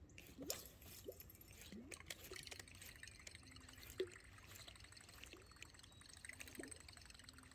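Faint, quiet water sounds of a lake: small drips and trickles with a handful of soft, separate plops.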